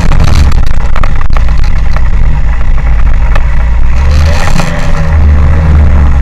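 Motorcycle engine running while the bike rides slowly, picked up by a camera mounted on the bike, with a loud, steady low rumble.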